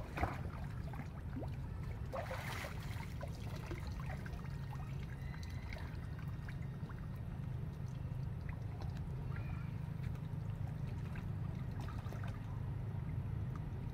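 Monkeys splashing and paddling as they swim in shallow water, with one louder splash about two seconds in, over a steady low rumble.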